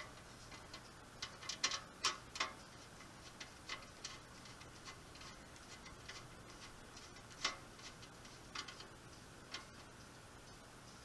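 Phillips screwdriver tightening screws into a metal stand frame, giving faint, irregular clicks and ticks of metal on metal.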